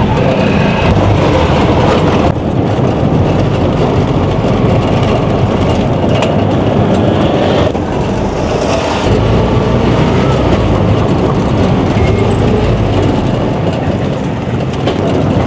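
Three-wheeled mototaxi under way, heard from the passenger seat: its engine and road noise make a steady, loud rumble.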